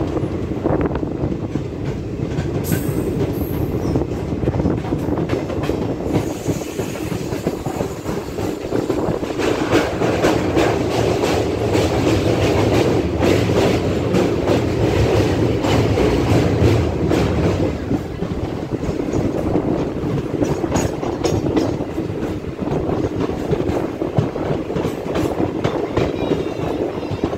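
DEMU (diesel-electric multiple unit) passenger train running along the line, its wheels clacking over the rail joints, heard from an open coach window. Faint, brief wheel squeals come a couple of times.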